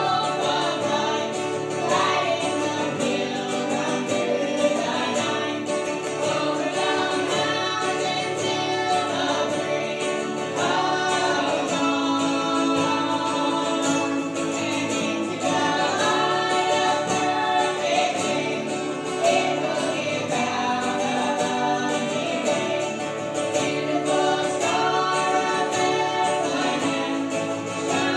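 Several voices singing a gospel song together, accompanied by a strummed mandolin and an acoustic guitar, without a break.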